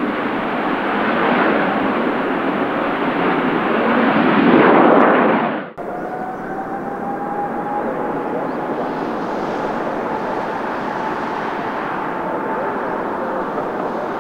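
Boeing 737-800 airliner's jet engine noise, swelling to its loudest about five seconds in, then cut off abruptly. After the cut, the steady engine noise of a Boeing 747-8 freighter, with a faint whine slowly rising in pitch.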